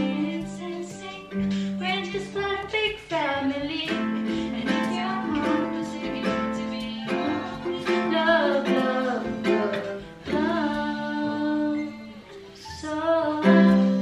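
A woman singing while strumming a ukulele. The playing and voice dip briefly about two seconds before the end, then pick up again.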